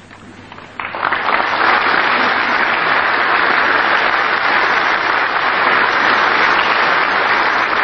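Large audience applauding, starting suddenly about a second in and then holding steady.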